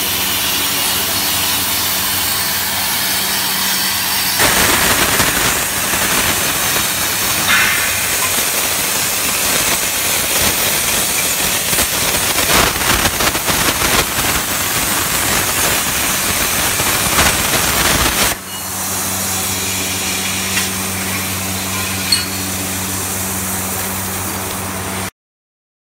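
Plasma arc of a CNC gantry plasma cutter cutting steel plate: a loud steady hiss with a low electrical hum beneath it. For most of the middle it turns rougher and louder with a crackle, then settles back to the steady hiss and hum, and cuts off abruptly near the end.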